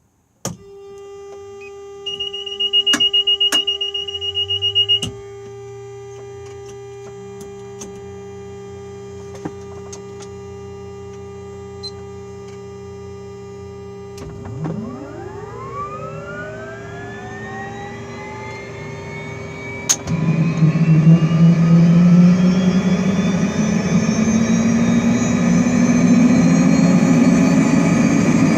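Bell 206B3 helicopter's Allison 250 turboshaft engine being started: steady electrical hums, a loud beeping warning tone and switch clicks, then about halfway through the starter spools the turbine up with a rising whine, which turns into a much louder, climbing turbine roar about two-thirds of the way in as the engine accelerates.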